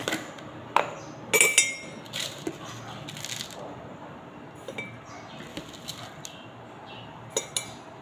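A metal spoon clinks and taps against a glass and a plastic jar as instant oats are scooped out and tipped into the glass, with a rustle of dry oats. The loudest is a ringing clink about a second and a half in, and the plastic jar cap is handled at the start.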